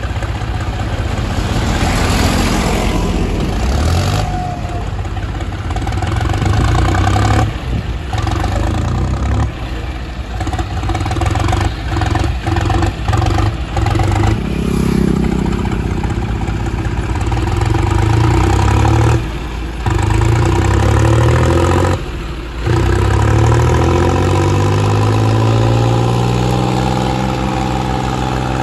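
Diesel engines of a John Deere 5050 D and a New Holland 3630 tractor working hard under load as the two pull against each other, revs rising and falling. The sound breaks off abruptly for a moment several times.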